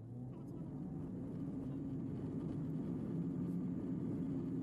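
Car engine and road noise heard from inside the moving car, a steady low rumble that grows louder over the first second or so as the car speeds up, then holds steady.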